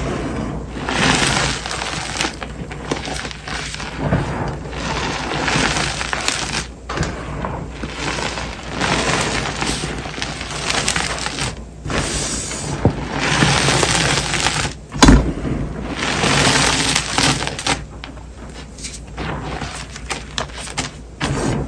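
Crushed gym chalk powder crunching as gloved hands scoop and squeeze it by the handful, in repeated surges of a second or two. A single sharp knock about fifteen seconds in is the loudest sound.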